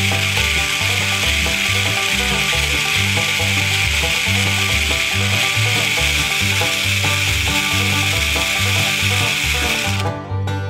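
Background music with a steady bass line, under a loud, steady rasping noise that cuts off suddenly near the end.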